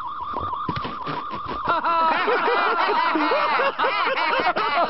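A wavering high tone for about the first two seconds, then a group of cartoon characters bursting into loud, overlapping laughter.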